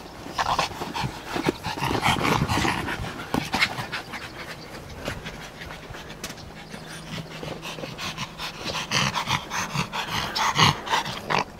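Two excited Yorkshire terriers panting and scrabbling at a plastic play ball, with many quick scratches and taps of claws on the ball. It is busiest in the first few seconds and again near the end.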